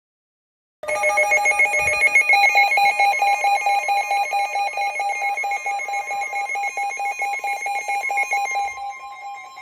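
Electronic emergency alert tone: a rapid, ringing warble between two pitches. It starts about a second in, holds steady, then fades near the end, leaving a faint steady single tone.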